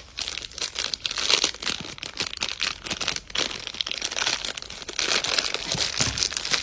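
Crinkly plastic packaging being handled and opened to unwrap a squishy DNA ball fidget toy: a dense, irregular run of crackles and rustles.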